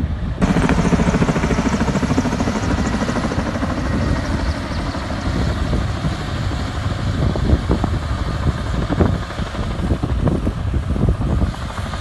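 Engines of heavy water-cannon trucks running, with a helicopter overhead. Irregular thuds come through the second half.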